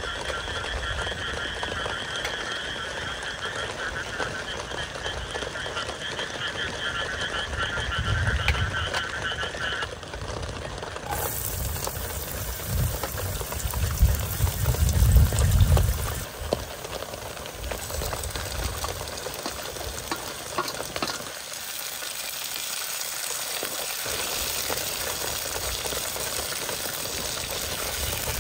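Frogs croaking in a steady pulsing chorus, which stops about ten seconds in. Then chopped vegetables start sizzling in hot oil in a pan, a hiss that carries on to the end, with a few heavy low thumps of handling, loudest midway.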